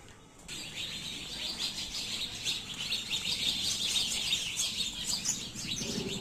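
Many small birds chirping together in a continuous chorus of short, rapid chirps, starting about half a second in.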